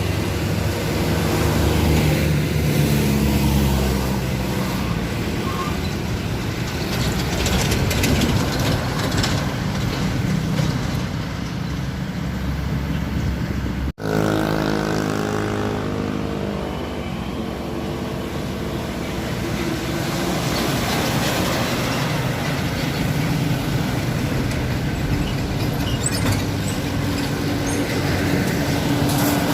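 Truck engine running hard under load on a steep climb, with mixed traffic noise. The sound breaks off for an instant about halfway and picks up again.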